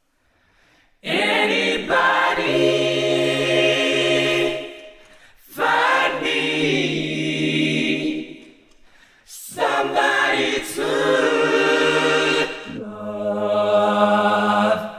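A cappella multi-voice singing: layered voices hold long sustained chords in three phrases, the last shifting to a lower chord near the end.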